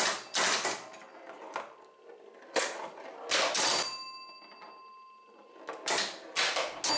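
Bally 4 Queens electromechanical pinball machine in play: bursts of clattering relay and score-reel clicks as the ball hits targets, with a bell ringing out and fading about four seconds in.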